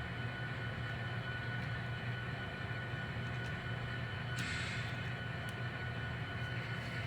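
N scale NS SD70ACe model locomotive's sound decoder playing a steady diesel engine rumble with a thin whine over it, and a brief hiss about four and a half seconds in.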